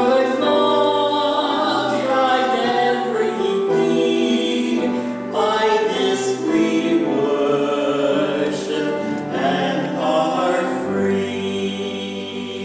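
A hymn sung by a small group of singers with piano accompaniment. Near the end the last chord is held and begins to fade.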